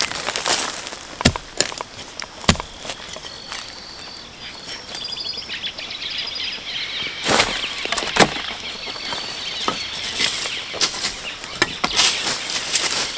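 Rustling and crunching in dry plant litter, with several sharp snaps or knocks spread through. Faint short high chirps for a few seconds near the middle.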